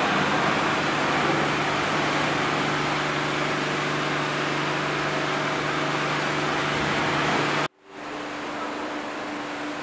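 Steady machine noise with a low hum. It cuts off abruptly about three-quarters of the way through, and a quieter steady noise with a higher hum follows.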